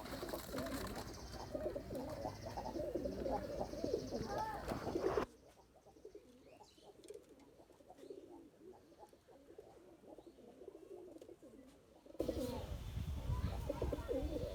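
A flock of domestic pigeons cooing, many calls overlapping. The sound drops suddenly to quieter cooing about five seconds in and comes back as loud a couple of seconds before the end.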